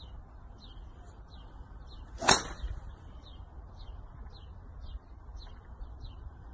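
A driver strikes a golf ball off a driving-range mat about two seconds in: one sharp crack, the loudest sound, with a brief swish. Small birds chirp repeatedly, about twice a second, over a steady low background hiss.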